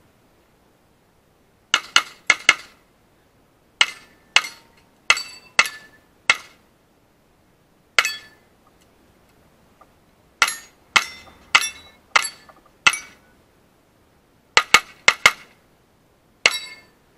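A 9mm ported S&W M&P pistol firing about two dozen shots in quick pairs and strings, with short pauses between groups. Some shots have a brief ringing after them.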